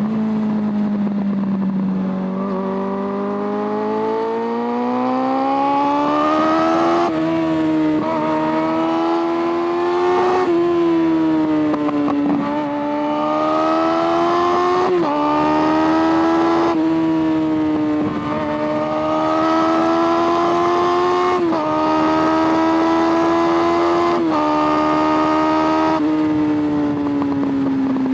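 Suzuki Bandit 600's carburetted inline-four engine running under way on a motorcycle. Its note climbs and eases off repeatedly, with several abrupt steps in pitch.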